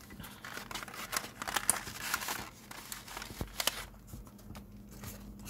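Plastic blister tray and cardboard box of a Pokémon TCG theme deck crinkling and clicking as they are pulled apart by hand, with a run of sharp crackles in the middle.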